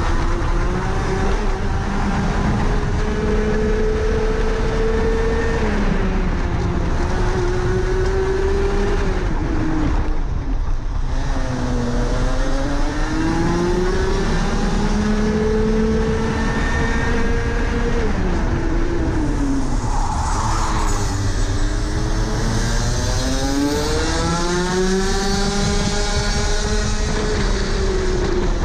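Rotax Max Senior 125cc two-stroke single-cylinder kart engine at racing speed, heard onboard: the engine note climbs along the straights and falls sharply when the driver lifts for corners, with deep drops about a third and two-thirds of the way through. A hiss joins in over the last few seconds.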